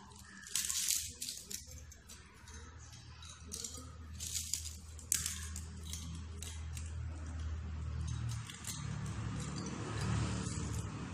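Aluminium foil being handled and worked into a water bottle: a few short crinkling rustles with light clinks. A low steady hum runs underneath.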